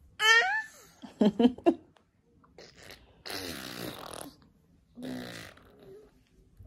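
A toddler vocalising: a short high squeal, a few brief babbles, then wet, buzzing raspberries blown through the lips and tongue.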